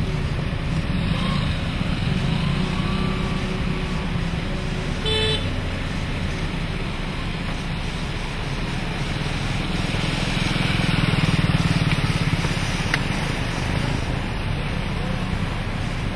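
Road traffic driving through a flooded street: car and motorcycle engines running, with tyres swishing through standing water. The water noise swells about ten to twelve seconds in, and there is a short horn toot about five seconds in.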